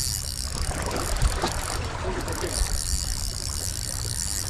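Shimano Nexave 5000 spinning reel being cranked as a hooked fish is reeled in: a mechanical whirr over a steady rushing noise, with a knock about a second in.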